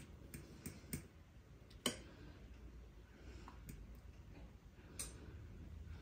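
Metal fork clinking against a bowl of beaten egg while chicken cutlets are dipped: a handful of light, irregular clicks. The sharpest comes just under two seconds in and another at about five seconds.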